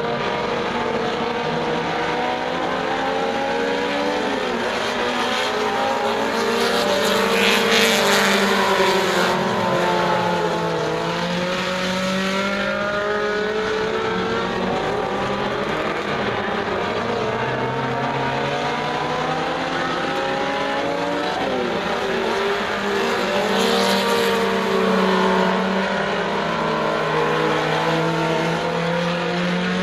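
Several four-cylinder Super Stock dirt-track race cars running laps, their engines rising in pitch as they accelerate and falling as they back off for the turns, several at once overlapping. The sound swells as the pack comes past, about a quarter of the way in and again about three-quarters of the way in.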